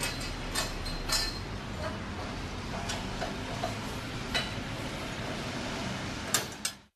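Steel scaffolding tubes and fittings clinking as they are handled: about five sharp metallic clinks over a steady background noise, which cuts off abruptly near the end.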